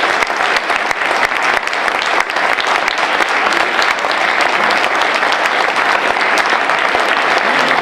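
Sustained applause from a seated audience: many people clapping steadily after a speech ends.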